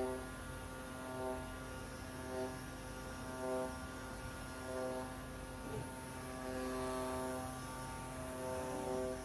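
CNC oscillating knife cutting machine cutting EPE foam: a steady hum under pitched drive-motor whines. The whines come and go about once a second as the cutting head moves, and run longer near the end.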